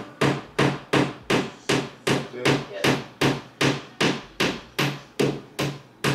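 Hammer blows on a nail in a wall, struck at a steady pace of about three a second, each a sharp knock with a short ring.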